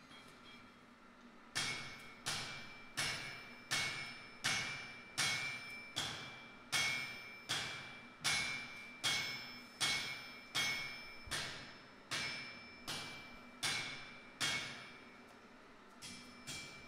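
Hand hammer forging a glowing-hot bar on a steel anvil: a steady run of blows about one every three-quarters of a second, each with a bright metallic ring, starting about a second and a half in. The heavy blows stop near the end and give way to a few lighter taps.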